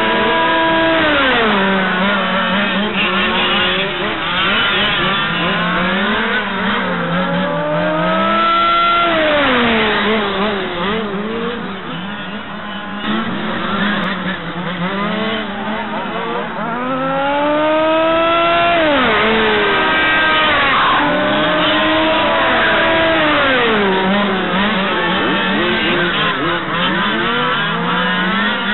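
Several 1/5-scale RC touring cars' small two-stroke petrol engines racing round the track, overlapping. Each engine rises in pitch as it accelerates down a straight and drops as it brakes for a corner. The sound is quieter for a few seconds in the middle, when the cars are on the far side of the circuit.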